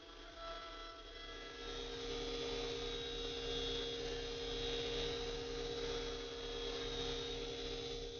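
OPTI mill F310 CNC milling machine running, its spindle and end mill cutting a metal block with a steady whine and cutting hiss. The sound grows louder over the first two seconds and then holds steady.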